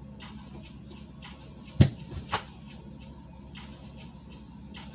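Light ticks and two sharp knocks about half a second apart, the first the louder with a dull thud in it, as makeup items and a brush are handled.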